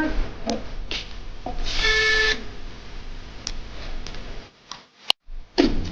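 Laptop parts being handled and fitted back together: rubbing and scattered light clicks, with a brief whine about two seconds in and a sharp click near the end.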